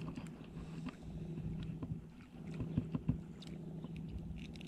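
A steady low motor drone, with small sharp clicks and taps of steel pliers working a hook free from a fish held in a lip grip; the loudest clicks come about three seconds in.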